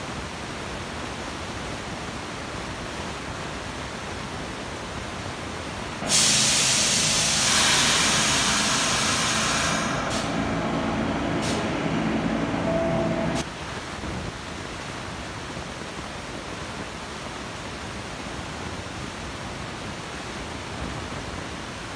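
R46 subway train moving slowly along the track with a steady rumble. About six seconds in, a loud hiss of air from the train's brakes starts suddenly, runs about seven seconds with two short breaks, and cuts off.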